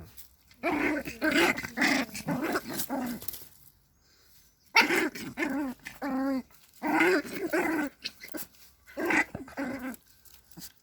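Fox terrier growling and snarling aggressively in repeated bouts, with a pause of about a second midway.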